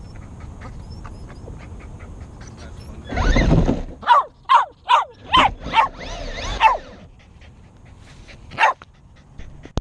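A dog barking: a quick run of six barks, each falling in pitch, then one more bark near the end. A loud rushing noise lasting about a second comes just before the barks.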